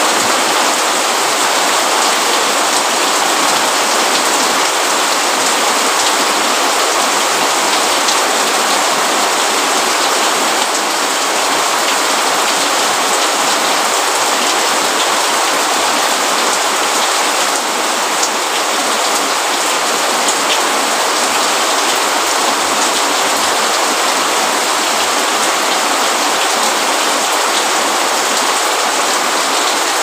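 Rain falling steadily, an even hiss of drops with a few single drop ticks standing out.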